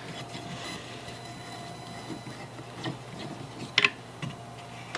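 A screwdriver turning a just-loosened screw out of the wooden body of a Stanley No. 31 transitional plane, with faint scraping and rubbing of metal in wood. There are a few small ticks, then one sharp click just before four seconds in.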